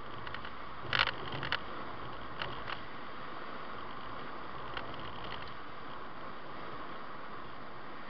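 Steady road and tyre noise of a car cruising on a motorway, heard from inside the cabin. A few short clicks or rattles break in about a second in, the loudest, and fainter ones come a little later and again around the middle.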